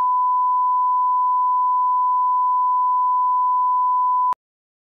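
A steady 1 kHz sine-wave reference tone, the line-up tone that plays with colour bars, cutting off suddenly a little over four seconds in.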